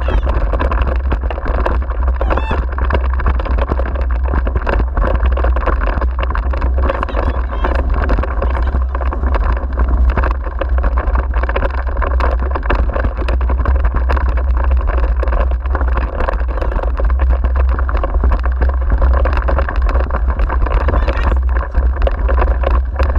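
Continuous rattling rolling noise from a dog-pulled wheeled rig running over a rough forest track, with many small clicks and knocks, and wind buffeting the microphone as a steady low rumble.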